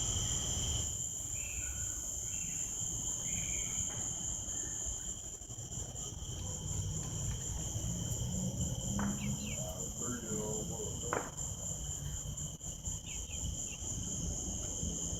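Steady high-pitched insect chorus, holding two constant pitches, over a low rumble, with a few faint short chirps now and then.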